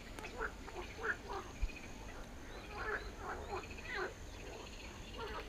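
Frogs croaking: a faint, irregular run of short calls, several a second.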